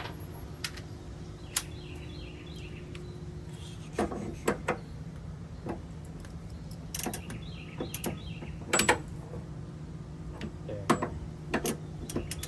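Scattered metallic clinks, knocks and clanks of wrenches and suspension parts being handled while working on a car's front suspension, the loudest a ringing clank about nine seconds in, over a steady low hum.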